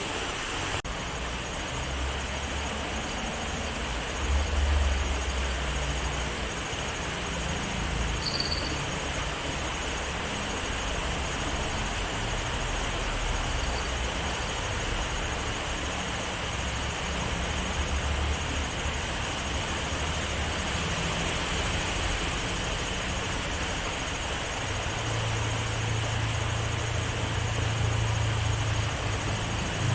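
Steady rush of flowing river water, with a low rumble of passing vehicles that swells and fades several times. A short high chirp about eight seconds in.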